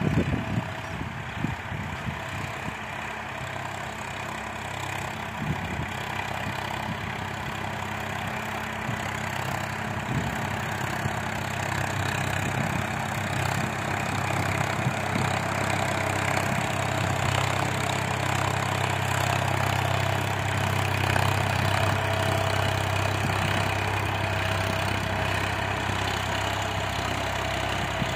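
Swaraj 963 FE tractor's three-cylinder diesel engine running steadily under load while it pulls a five-tine cultivator through the soil. It grows louder from about halfway as the tractor comes closer.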